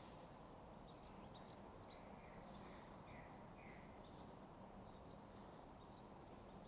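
Faint background noise with a few small bird chirps, a quick series of them about two to four seconds in and a few fainter ones after.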